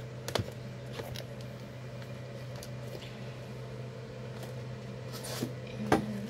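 Clear plastic phone-case packaging being handled and lifted away, giving a few light clicks and rustles over a steady low hum, with a sharper click near the end.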